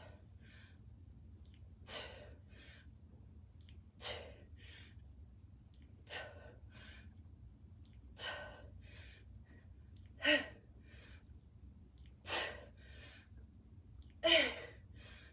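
A person breathing out sharply with each kettlebell squat, eight times, about once every two seconds, each followed by a softer breath in.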